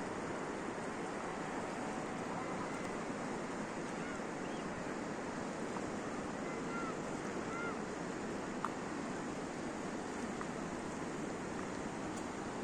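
Steady rushing of a fast-flowing mountain river, with a few faint short whistling notes and a single sharp click about nine seconds in.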